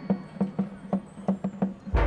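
Marching band in a quiet passage: percussion playing a quick, uneven pattern of sharp taps over a held low note. Right at the end the full band comes in with a loud, bass-heavy hit.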